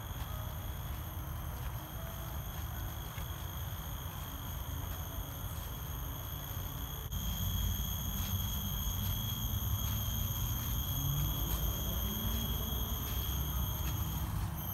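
Insects droning with a steady high-pitched whine, louder from about halfway through, over footsteps on a dirt trail and low handling rumble.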